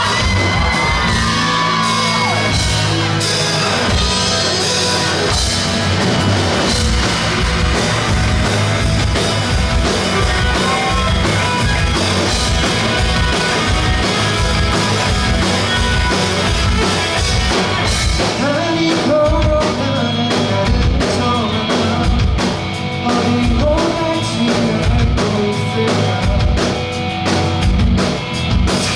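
Live rock band playing a song with a singer, drums keeping a steady beat under the full band, and a few yells from the crowd.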